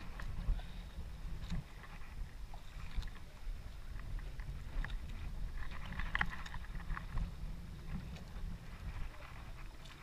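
Low, steady rumble of wind and water around a small fishing boat at sea, with scattered light clicks and knocks.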